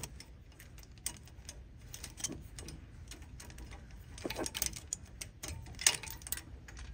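Scattered light clicks and small rattles of plastic wiring clips being handled and pressed onto a wheel speed sensor line, with a cluster of louder clicks past the middle and a sharp click near the end.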